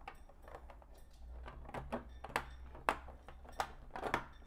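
Plastic LEGO bricks clicking and knocking as a window section and a pillar are pressed into place: a run of irregular small clicks, the sharpest about three seconds in.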